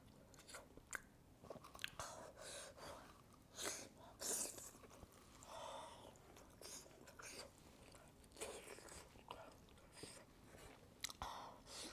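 A person chewing pork hock close to the microphone, with irregular soft clicks and mouth noises.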